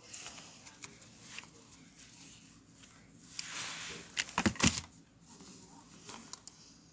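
Handling noises: a soft rustle, then a quick cluster of sharp knocks about four and a half seconds in, with a few small ticks around them.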